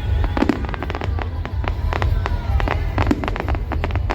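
Fireworks going off in quick succession: a dense string of sharp bangs and cracks over a steady low rumble.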